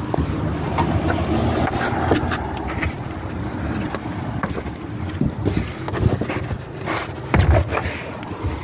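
Plastic trim on a car's rear liftgate being pried and handled: scraping with scattered clicks and knocks over a steady background hiss.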